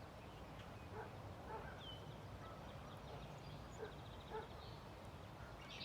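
Quiet outdoor background with a low rumble, broken by four faint, short calls from a distant animal in two pairs and a single bird chirp about two seconds in.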